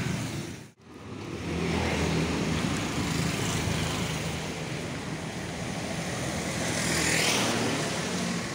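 Road traffic going past close by, with car and motorcycle engines running and a steady tyre hiss; one vehicle passes louder about seven seconds in. The sound cuts out briefly just under a second in.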